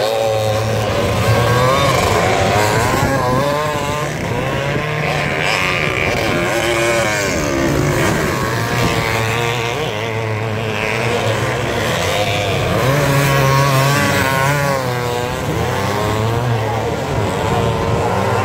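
Several vintage motocross motorcycles racing, their engines revving up and down over and over, overlapping one another.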